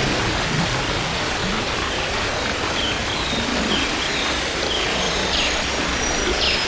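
Steady rain hiss with a bird calling over it: two short downward-sweeping whistles in the second half, and a few fainter short chirps before them.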